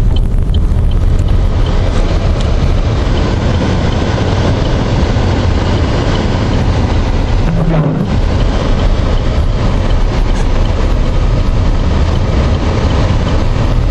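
Steady road and engine noise inside a moving vehicle, strongest at the low end, as it drives along a snow-covered road.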